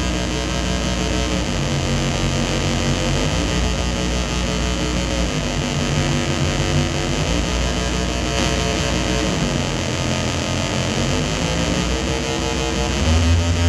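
Distorted electronic feedback drone from a magnetic switch feedback machine routed through small mixers and effects pedals, its knob being turned: layered sustained tones that shift in pitch over a constant noisy hiss, with a low hum swelling near the end.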